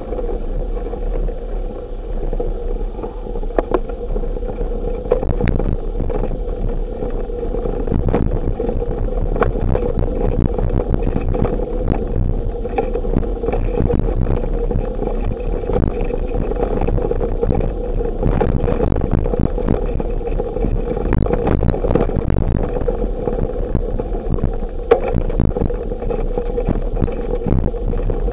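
Bicycle ride over a rough dirt and gravel track heard from a handlebar-mounted camera: continuous wind noise on the microphone, and frequent small knocks and rattles as the bike jolts over bumps, one sharper knock near the end.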